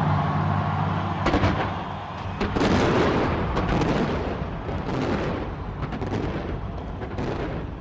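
Fireworks bursting in rapid, overlapping succession: a dense run of booms and cracks with no pause between them.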